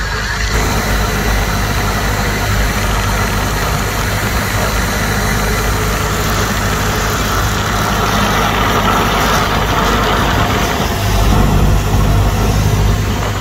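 Steady drone of a light single-engine airplane's engine and propeller heard inside the cabin in flight. It grows a little louder and deeper near the end.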